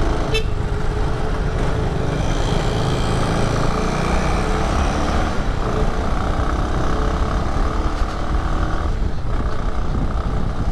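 Bajaj Avenger cruiser's single-cylinder engine running at a steady riding speed, under a constant rush of road and wind noise.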